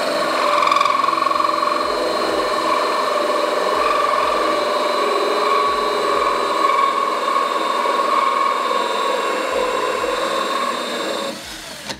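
Cordless drill running a hole saw at high speed through a plastic fuel tank under light pressure, a steady whine that stops near the end as the cut finishes.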